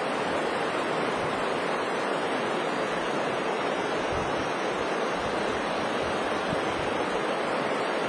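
Small river rushing over rocky rapids: a steady, even sound of running whitewater.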